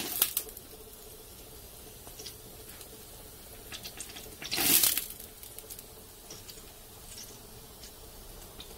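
A rack of ribs roasting on a rotisserie spit, its fat sizzling and crackling with scattered sharp pops. About four and a half seconds in, a loud hiss of sizzle flares for half a second.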